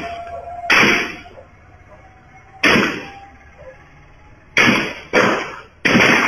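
Assault-rifle gunshots picked up by a street CCTV camera's microphone: five single sharp bangs at irregular gaps, each with a short echoing tail.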